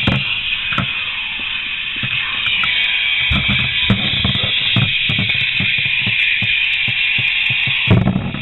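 Two Metal Fight Beyblade tops spinning against each other in a plastic stadium: a steady grinding whir with irregular sharp knocks as they collide, one hard clash near the end.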